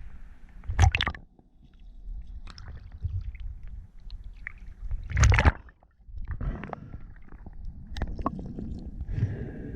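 Water gurgling and sloshing around a camera at or just under the surface, with a low steady rumble. A louder splash about a second in and another a little after five seconds in.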